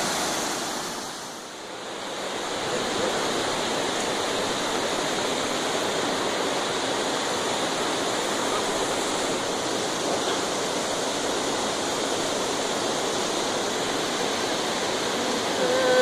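Steady rushing of a large waterfall, briefly dropping away and coming back about a second and a half in.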